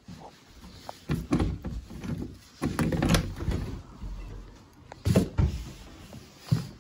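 A wooden interior door being handled and pushed open: a series of knocks and clunks, with footsteps and rustling between them.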